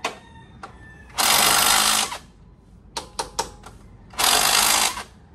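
Impact wrench hammering on a stubborn bolt in two bursts of about a second each, one about a second in and one near the end, with a few sharp clicks in between.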